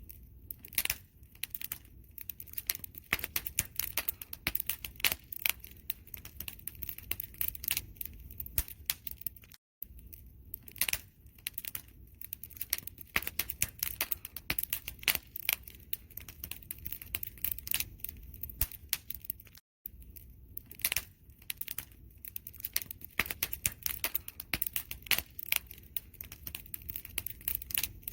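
Campfire crackling: a dense, irregular run of sharp pops and snaps over a low steady rumble of burning wood. The sound cuts out briefly twice, about ten and twenty seconds in.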